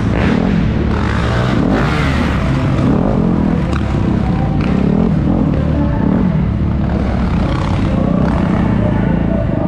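Several off-road motorcycle engines racing, their overlapping engine notes revving up and down as the bikes accelerate and back off.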